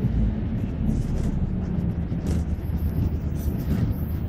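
City bus running: a steady low rumble of engine and road noise, heard from inside the bus.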